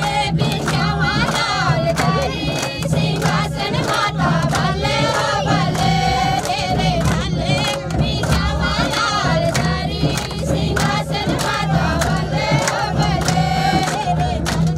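Many voices singing a devotional chant together over rhythmic percussion with sharp, frequent strikes.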